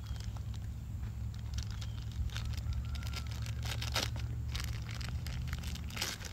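Clear plastic blind-bag wrapping crinkling and rustling in the hands as a toy is taken out, with louder crinkles about four seconds in and near the end, over a steady low rumble.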